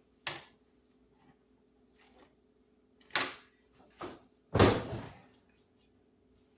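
A few short knocks and clatters, then a heavier thud with a brief ring-out about four and a half seconds in: a kitchen oven door being shut. A faint steady hum lies underneath.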